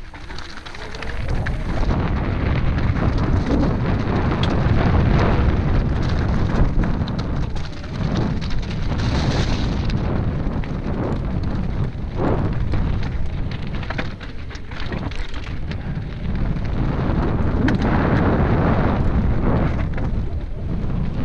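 Commencal Meta SX full-suspension mountain bike descending a loose rocky scree path: tyres crunching over stones and the bike rattling with dense, irregular clatter, over a low rumble of wind on the microphone.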